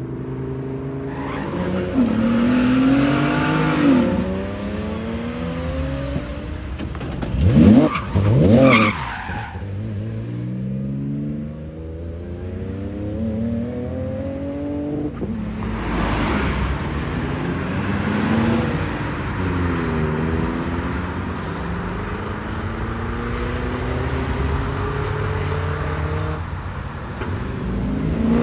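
Several performance cars accelerating hard away, engines revving up and dropping back at gear changes, beginning with a Lamborghini Huracán STO's V10 pulling away. The loudest moment is one car passing close by about eight seconds in, its note swooping up and then down.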